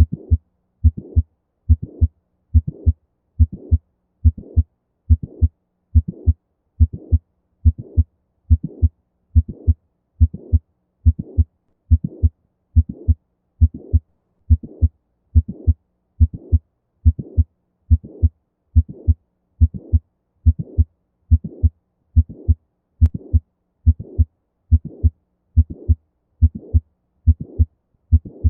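Heart sounds of mitral valve prolapse beating steadily at about 70 beats a minute: each beat carries a mid-systolic click followed by a late systolic murmur.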